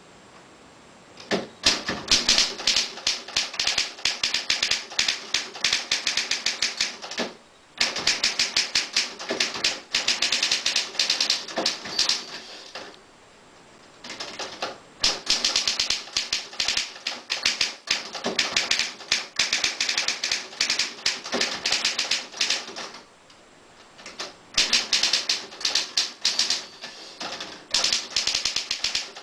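A 1950s Triumph Perfekt manual portable typewriter being typed on: rapid runs of key strikes, with three short pauses of about a second between runs.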